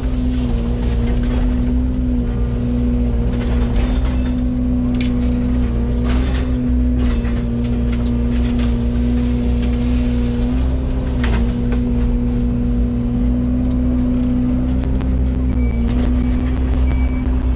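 Yanmar VIO80 excavator's diesel engine running steadily at working speed, its pitch dipping briefly a few times, with scattered sharp cracks and knocks. Near the end a repeated high beep starts.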